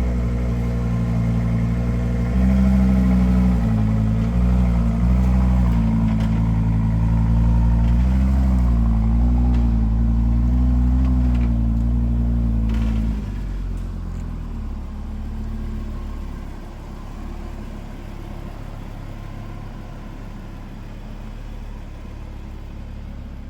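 Audi RS3 8Y facelift's five-cylinder turbo engine idling at raised revs after its 'emotion start' mode, the pitch wavering a little. About 13 seconds in the revs drop and it settles into a lower, quieter idle.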